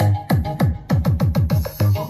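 Electronic dance music with a heavy bass beat played through a Koda 6-inch subwoofer: about four deep kick hits a second, each dropping in pitch.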